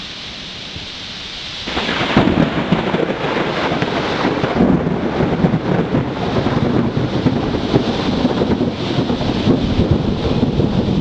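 Thunder breaking in suddenly about two seconds in and rolling on loud and continuous through a thunderstorm, with rain.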